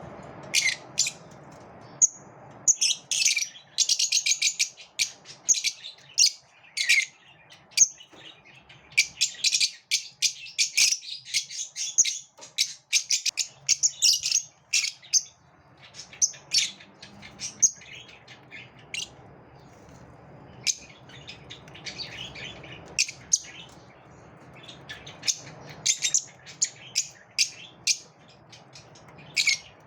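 Lovebirds chirping: bunches of rapid, sharp, high-pitched calls that come and go.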